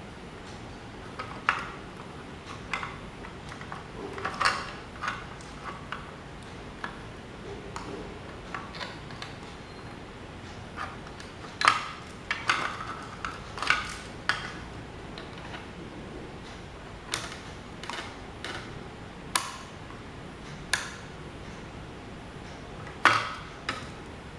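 Small metal parts and tools being handled during work on an old electric desk fan: irregular sharp clicks, taps and light metallic clinks, a dozen or more spread out, two of them louder than the rest.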